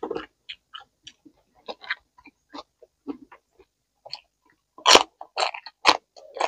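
Wet chewing, then crisp crunching bites into a raw green chili pepper, with the loudest crunches about five to six seconds in.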